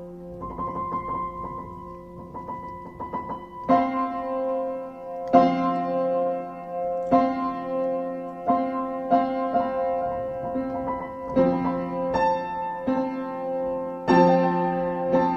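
Improvised piano: held chords ringing on, played softly at first, then louder chords struck about every one and a half to two seconds from about four seconds in.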